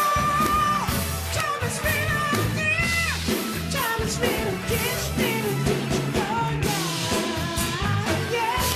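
House band playing upbeat rock walk-on music, with a voice singing over a steady bass line and drums.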